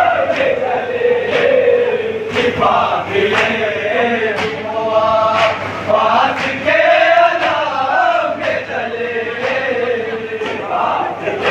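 A group of men chanting a noha, a Shia lament, together in a drawn-out melody. Sharp hand slaps keep time about once a second, as in matam chest-beating.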